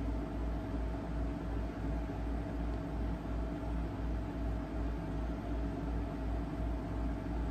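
Steady low hum with even hiss: room background noise with no distinct events.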